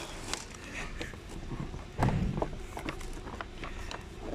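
Plastic knocks and clicks from a 2020 Hyundai Elantra headlight housing and its lens being handled and fitted together, with a heavier thump about two seconds in.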